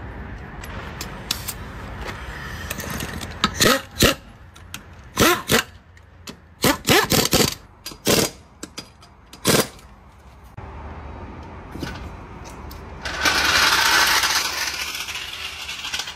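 Pneumatic impact wrench run in several short bursts, spinning up and hammering as it tightens a wheel's lug nuts. Near the end comes a few seconds of steady hissing.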